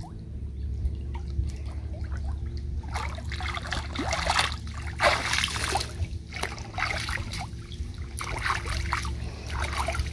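Shallow lake water splashing and trickling around hands held in the water as a large carp is released, in irregular splashes that grow busier from about three seconds in.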